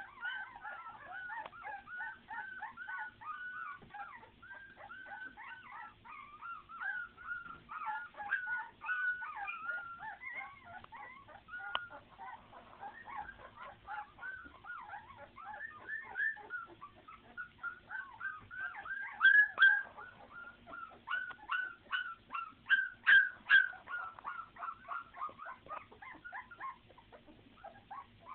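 A litter of young puppies crying, a steady stream of short high calls, several a second and overlapping, with the loudest calls coming about two-thirds of the way through.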